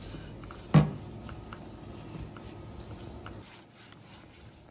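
Hands rubbing salt into a raw leg of lamb on a stainless steel table: a soft, wet rubbing and squishing with small ticks, and one short thump about a second in. The rubbing dies away about three and a half seconds in.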